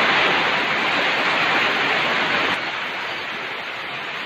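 Heavy rain pouring down in a strong, typhoon-like wind: a steady rushing that eases a little about two and a half seconds in.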